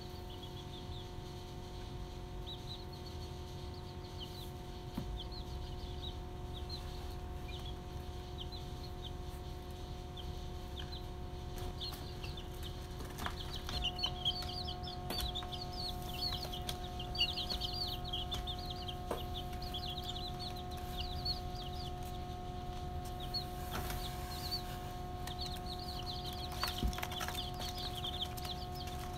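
Young chicks peeping: many short, high chirps, sparse at first and busier from about halfway through, over a steady low hum.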